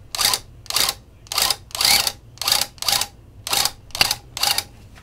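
Loop pile tufting gun running in short bursts, about two a second, as it is pulsed along the rug backing.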